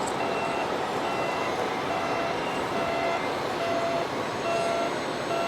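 Repeated electronic reversing beeps from a radio-controlled model truck's sound module, over a steady din of background noise.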